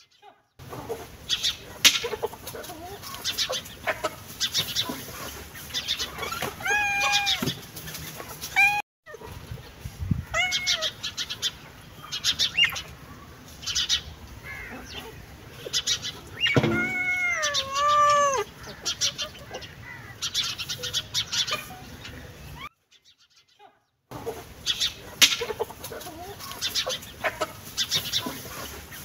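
Animal calls: many short, clucking calls throughout, with a handful of longer cries whose pitch rises and falls. The longest of these is near the middle. The sound drops out briefly twice.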